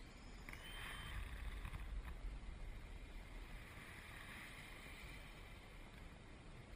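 Faint buzz of a small quadcopter's A2208 1500 kV brushless motors and propellers flying overhead, swelling and fading twice, with low wind rumble on the microphone.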